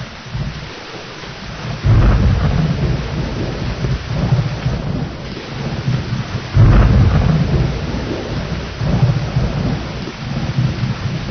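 Steady heavy rain with rolling thunder: rumbles that start suddenly about two seconds in and again a little past halfway, each dying away slowly.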